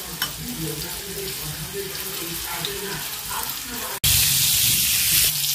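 Breaded chicken pieces deep-frying in oil: a steady sizzle that is softer at first, then jumps suddenly much louder and hissier about four seconds in.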